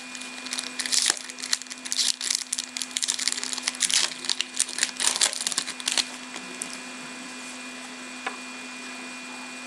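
A box of hockey trading cards being opened and handled: bursts of crinkling, tearing and rustling of the packaging for about six seconds, then only a faint steady hum.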